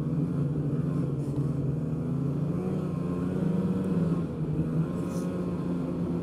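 A 2015 Polaris Pro S 800 snowmobile's two-stroke twin engine running steadily at trail speed. About three seconds in it rises a little, then eases off about four seconds in.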